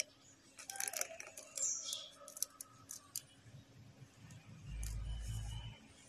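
Alexandrine parakeet making faint soft chirps and clicks, quiet and scattered, with a brief low rumble about five seconds in.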